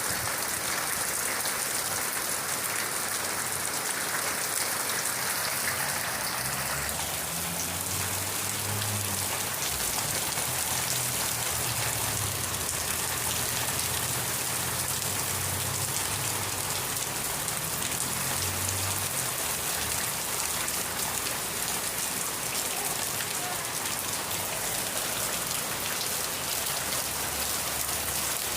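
Steady rain falling and spattering on surfaces, an even dense hiss without a break. From about seven seconds in, a faint low drone sits underneath.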